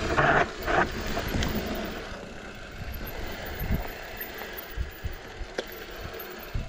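Mountain bike (Ibis Ripmo) rolling over rock slabs and a rough dirt singletrack: tyre rumble and wind buffeting on the handlebar-mounted camera, with a few louder scuffs in the first second and the odd sharp click of the bike over bumps.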